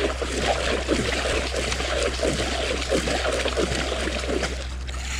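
Water gurgling and sloshing continuously as a fishing rod tip and lure are swept fast through the water in figure-eights right beside the bank.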